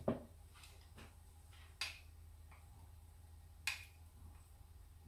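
A wooden spatula tapping against a non-stick wok as small pieces of food are put into the oil: a few short, sharp clicks, about two seconds apart, over a faint steady low hum.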